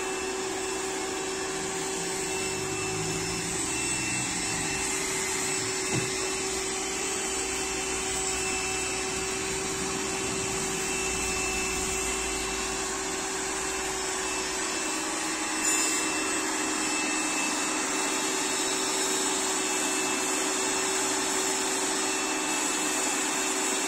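Small electric pressure washer running steadily: its motor and pump hum on one held tone while the lance sprays water onto a tractor's bodywork. There is a short knock about six seconds in and a brief louder burst of spray a little past the middle.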